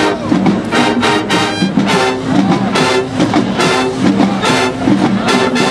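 College marching band playing: brass section sounding held chords over a drumline keeping a steady beat of about two strong hits a second.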